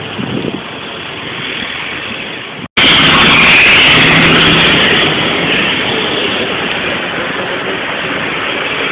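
Highway traffic passing. After a brief dropout about three seconds in, a heavy truck passes close by with loud tyre and wind noise that gradually fades into steady road noise.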